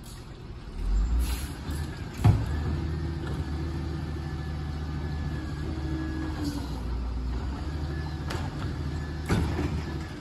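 Diesel engine of a Volvo garbage truck with a Heil Rapid Rail side-loader body, speeding up and then running steadily at a raised speed. There is a sharp knock about two seconds in and a short loud burst near the end.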